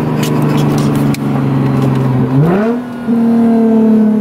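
Car engine heard from inside the cabin, running at a steady note, then rising quickly in pitch a little over two seconds in and holding at the higher note.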